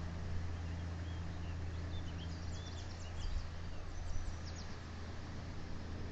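Wind rumbling steadily on an outdoor microphone, with a run of faint, quick, high bird chirps about two seconds in.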